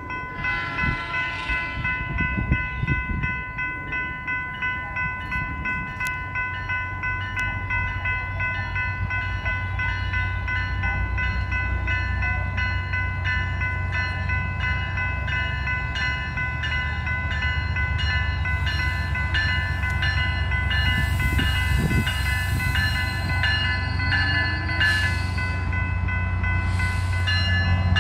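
Grade-crossing bell ringing steadily with rapid strikes as a SunRail commuter train approaches. The low rumble of the train builds from about eight seconds in and grows louder toward the end.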